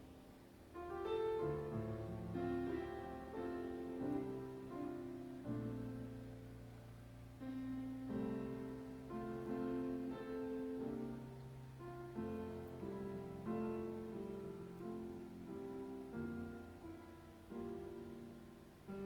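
Slow, quiet piano music: chords struck every second or two and left to ring, with held bass notes beneath.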